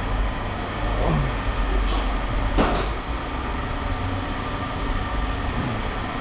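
Scrap metal pieces being handled and set down: a softer knock about a second in and a sharp metal clank about two and a half seconds in, over a steady low rumble.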